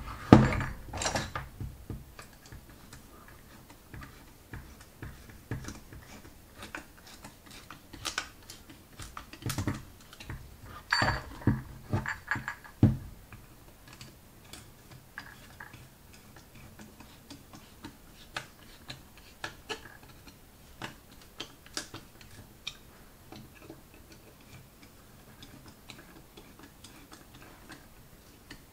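Scattered metallic clicks and knocks from a Zenith carburettor's pot-metal body and a screwdriver being handled on a workbench as its small screws are driven in. The clicks are busiest near the start and again about halfway through, then thin out to sparse light ticks.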